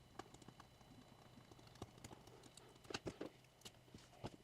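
Faint, irregular clicks and taps of small hand tools and fingers on a smartphone's parts, a few louder ticks about two, three and four seconds in.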